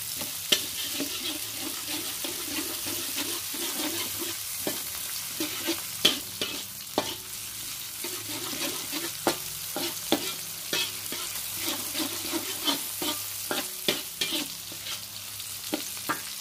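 Metal spatula scraping around a wok in repeated strokes, with sharp clinks of metal on metal, over the steady sizzle of sliced chilies, tomato, shallots and garlic frying in hot oil.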